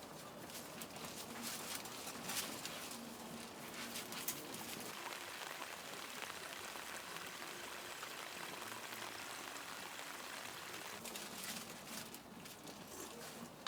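Steady rain falling, with separate louder drops striking now and then in the first few seconds and again near the end.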